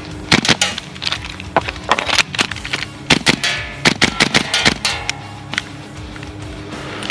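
Background music with a run of sharp, irregular cracks over it through most of the first five seconds.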